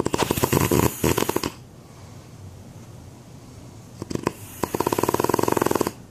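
A man snoring loudly: two long rattling snores with a quiet breath between them, the second beginning about four seconds in.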